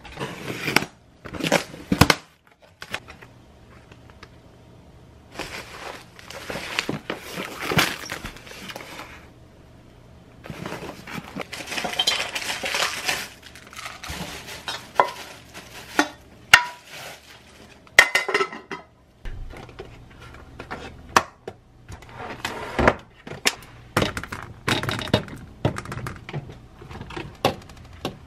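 Hands unpacking a cardboard delivery box: rustling of plastic and paper packaging, with scattered knocks and clinks as a plastic-wrapped pot is lifted out. Near the end there is light handling over a plastic salad spinner.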